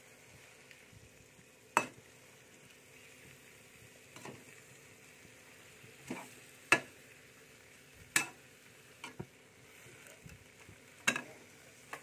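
Metal spatula stir-frying water spinach in a frying pan, knocking and scraping against the pan in sharp clacks every second or so over a faint steady sizzle.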